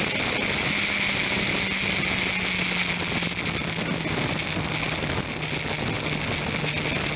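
Sport motorcycle engine running at low revs in second gear, its pitch slowly falling as the bike rolls off speed, with steady wind rush over the bike-mounted microphone.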